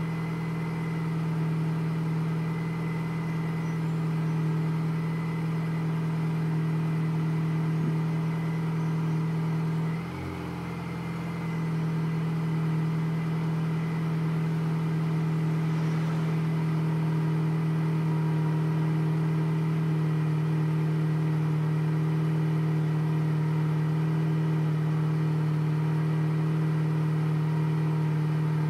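Stock Mini Cooper S engine and exhaust idling steadily soon after a cold start. The note dips briefly about ten seconds in, then settles back to a steady idle.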